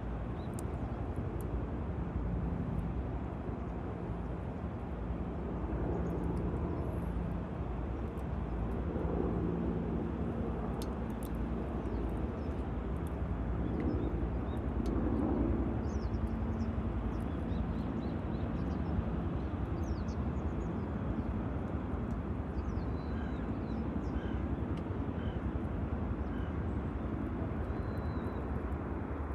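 Campfire burning, with scattered sharp crackles and pops over a steady low rumble.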